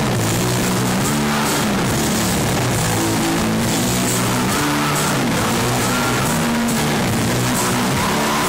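Live doom metal band playing loud, heavy distorted guitar chords over bass and drums, with no vocals.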